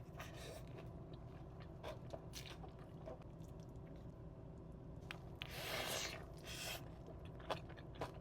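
Close-up sounds of a person eating In-N-Out food: chewing and biting, with a few short crunchy clicks and a longer noisy stretch of chewing about six seconds in, over a low steady hum.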